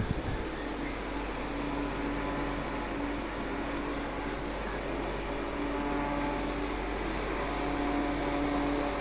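Electric ceiling fan running with a steady whirring hum.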